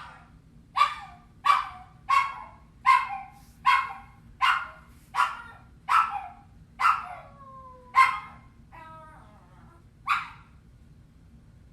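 Puppy crying in a rapid run of sharp, high yelps, about one every 0.7 seconds, with a falling whine and a short wavering whimper slipped in after about seven seconds; the calls stop after a last yelp near the end. It is a lonely puppy crying out for attention.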